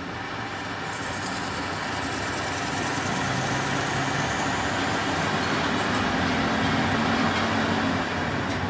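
A machine running steadily, a continuous mechanical noise that grows slightly louder about a second in.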